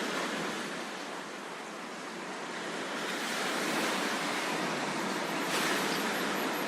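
Sea waves washing onto the shore in a steady hiss of surf, easing a little about a second in and building again in the second half.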